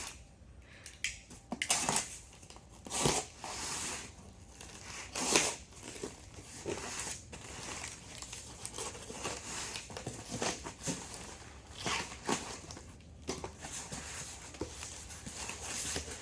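Cardboard shipping box being opened by hand: packing tape torn and cardboard flaps and packing material handled, in a string of irregular tearing, crinkling and rustling noises with occasional light knocks.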